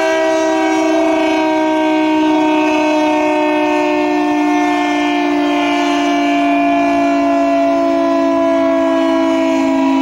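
Air raid siren sounding a continuous two-tone chord that sinks slowly in pitch.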